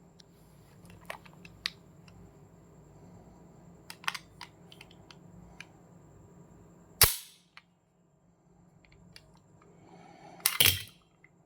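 A 30 bore pistol: a few light metallic handling clicks, then a sharp shot about seven seconds in and a second, rougher report about three and a half seconds later.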